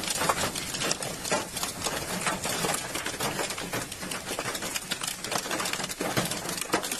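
Heavy rain pattering close to the microphone: a dense, irregular stream of sharp ticks over a steady hiss.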